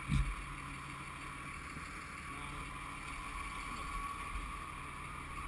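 Vehicle engine running steadily with a low rumble and hiss, and a single low thump right at the start.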